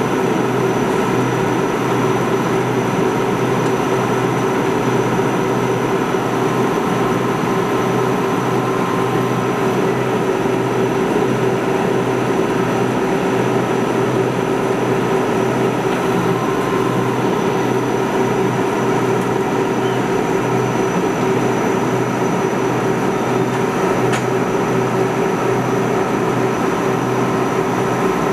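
Austal 40 m high-speed catamaran ferry under way at speed: a loud, steady drone of its engines, with an even hum, over the rush of water and air from the wake.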